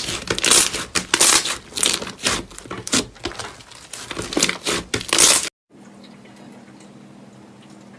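Slime being squeezed and pressed, giving a dense run of crackling, crinkling pops. It cuts off suddenly about five and a half seconds in, leaving only a faint low hum.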